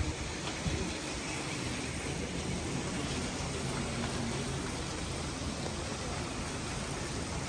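Steady outdoor background hiss, even across all pitches, with a faint low hum underneath and a brief knock right at the start.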